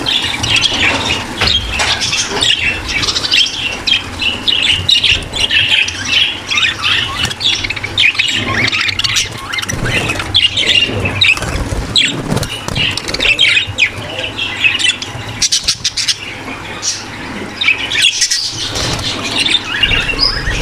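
A large flock of budgerigars in a breeding aviary chattering, warbling and squawking all at once, a dense, unbroken chorus of overlapping chirps.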